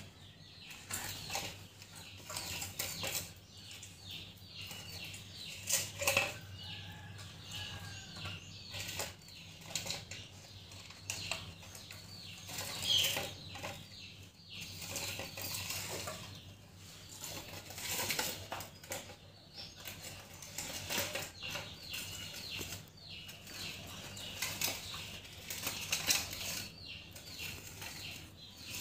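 A small clear plastic cup is knocked and slid about on a tiled floor by kittens nosing into it, making a steady run of small, irregular clicks, taps and light rattles.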